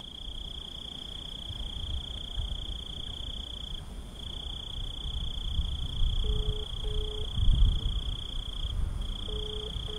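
Crickets trilling steadily in one continuous high note, breaking off briefly twice. A phone ringback tone of short double beeps, each pair about three seconds after the last, comes through the handset about six seconds in and again near the end, over a low, uneven rumble.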